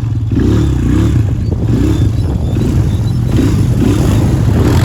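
ATV engine running while riding, its pitch wavering up and down with the throttle.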